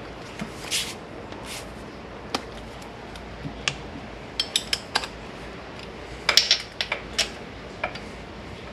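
Sharp metallic clicks and clinks of a torque wrench and socket being worked on the intake manifold's 10 mm bolts, tightening them to torque. The clicks come scattered, with quick runs of three or four about halfway through and again later on.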